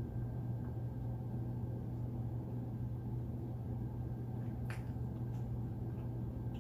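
Someone chewing a mouthful of burger, with a sharp mouth click or smack about four and a half seconds in, over a steady low hum.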